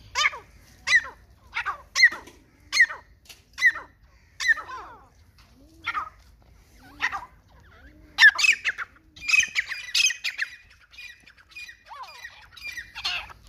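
Grey francolin (teetar) calling: a series of sharp, downward-sliding notes about one a second, then a louder, denser burst of calls about eight seconds in, followed by scattered calls.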